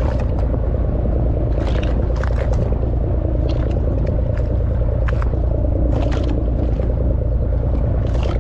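Fishing boat's engine running with a steady low rumble, with water slapping against the hull at irregular moments.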